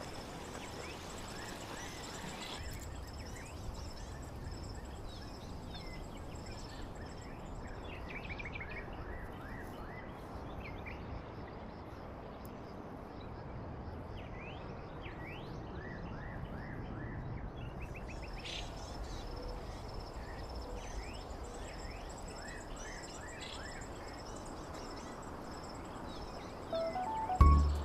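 Forest ambience with small birds giving short, quick chirps on and off, over a faint steady high tone and a low rumble of handling noise from the body-worn camera. Music comes in just before the end.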